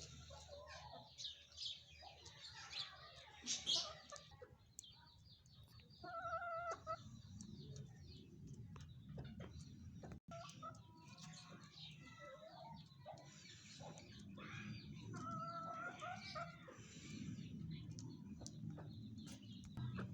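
Chickens clucking amid many short bird chirps, with a few longer pitched calls.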